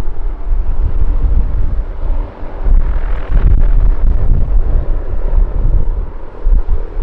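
Strong wind gusting on the microphone, a loud buffeting rumble that rises and falls, over the distant steady drone of an Airbus A320's jet engines climbing away after takeoff.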